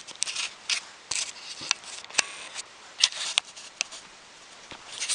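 Handling noise from fingers on the camera while it is zoomed in: short scratchy rubs and sharp clicks, several about a second apart, dying down near the end.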